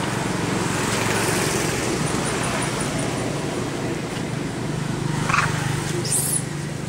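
Steady road traffic noise from passing vehicles, swelling about a second in. A brief high squeak falls in pitch near the end.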